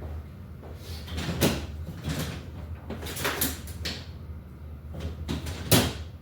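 A handful of short metallic clicks and scrapes from hand tools and small parts being worked on a bicycle's brake cable hardware, the loudest knock near the end, over a low steady hum.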